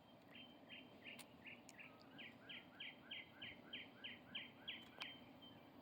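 Faint bird song: a steady series of short downslurred chirps, about three a second, with a couple of faint clicks.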